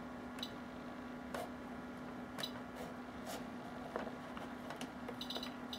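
Sharp little clicks of oscilloscope front-panel buttons and knobs being pressed and turned, about one a second, with a quick cluster near the end, over a steady electrical hum.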